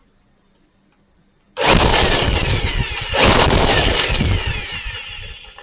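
INGCO dust blower switched on about a second and a half in: the motor and fan run with a loud rush of air, surge again about three seconds in, then wind down with falling pitch. A test run after reassembly, with the blower working properly.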